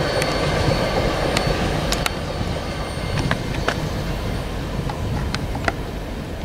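Freight train cars rolling past on the track: a steady low rumble with scattered sharp clicks and clanks from the running gear.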